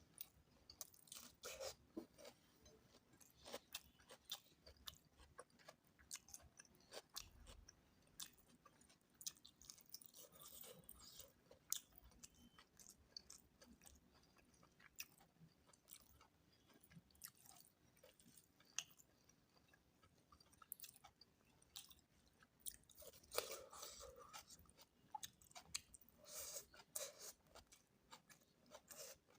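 Close-up eating sounds of someone chewing mutton curry with potatoes: soft, wet chewing and scattered sharp mouth clicks, busier in a few stretches.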